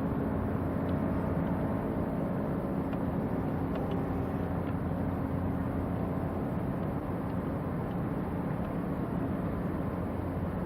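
A large ship's diesel engine running with a steady low hum over an even rushing noise.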